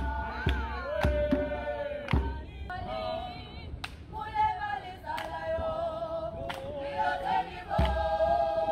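Choral singing: several voices holding long notes together, over sharp drum-like beats.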